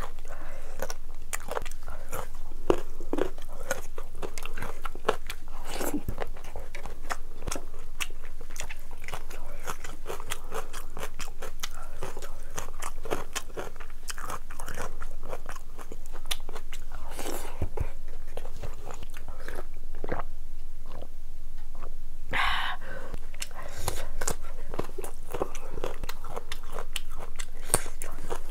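Mouth sounds of someone eating rice and curry by hand: continuous chewing with many small wet clicks and crunchy bites.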